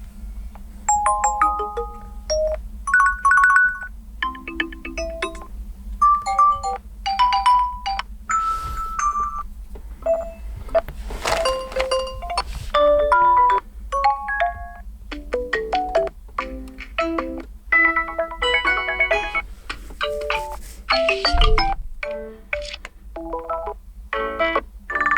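Nokia X10 stock ringtones previewed one after another, each a short melodic snippet of chime- and marimba-like electronic notes lasting a second or two before the next begins, over a steady low hum.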